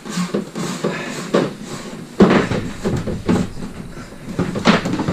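Plastic water hoses being pushed and pulled through an opening in a wooden cabinet: irregular knocks, scrapes and rustling, the loudest knock a little over two seconds in.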